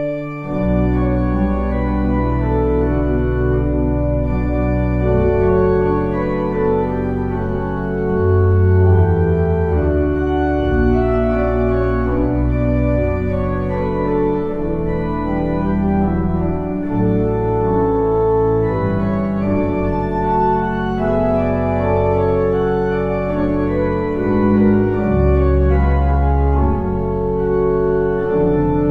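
Organ playing a hymn tune in sustained chords over a moving bass line.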